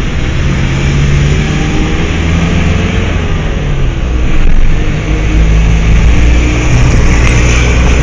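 Honda Fit's engine and exhaust running with a loud, continuous low drone whose pitch shifts a few times, as with light revving.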